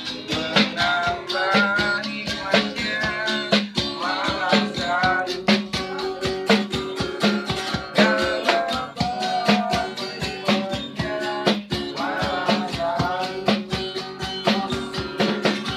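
A busker strumming an acoustic guitar and singing a melodious song over a quick, steady beat of strummed strokes.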